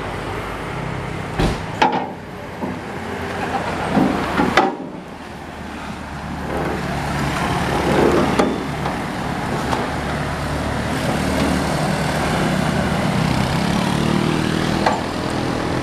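Truck engine running steadily, with a few sharp knocks in the first few seconds.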